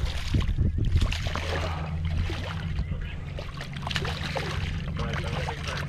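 Water lapping and splashing against a kayak's hull, with many small irregular ticks and splashes over a steady low rumble.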